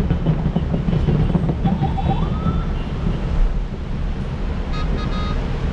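Steady low rumble of city traffic, with a few short horn beeps and a brief rising siren-like tone in the middle and a quick run of beeps near the end.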